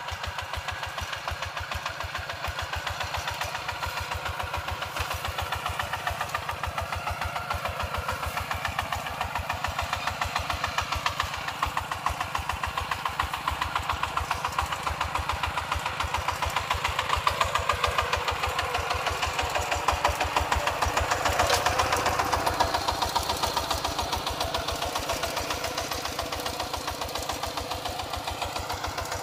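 Single-cylinder diesel engine of a two-wheel walking tractor chugging steadily under load as it works the field, a fast, even beat of exhaust pulses. It swells louder for a moment about two-thirds of the way through.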